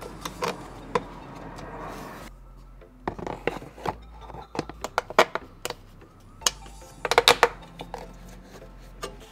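Hard plastic parts being handled and fitted to a car's front end: irregular clicks and knocks as a plastic brake duct is pushed and snapped into place, with a quick run of sharper clicks about seven seconds in.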